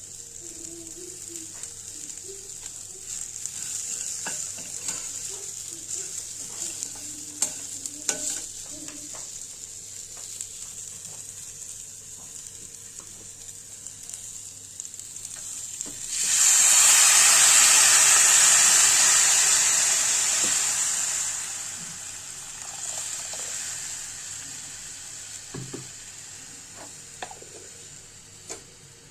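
Vegetables sizzling in a hot pan while a spatula stirs them, with small scraping clicks. About 16 seconds in the sizzling suddenly turns much louder for around five seconds, then dies back down to a steady hiss.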